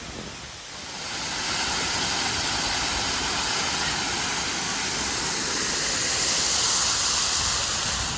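Artificial waterfall: water pouring down in a steady rushing hiss that rises about a second in and then holds.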